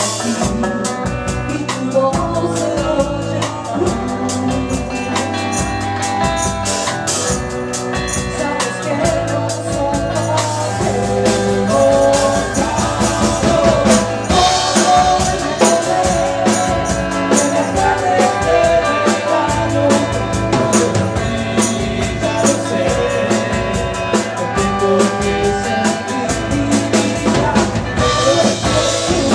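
Live band playing a song: a woman singing lead over drum kit, electric guitar and bass guitar, with a steady beat.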